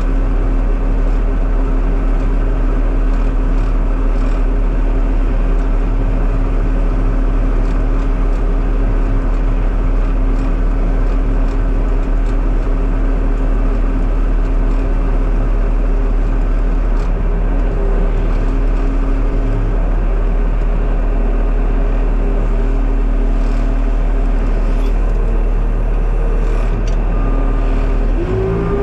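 Skid steer loader's engine running steadily under way, heard from inside the cab, with a constant low hum and a steady drone. Near the end the engine's pitch shifts and rises as it changes speed or load.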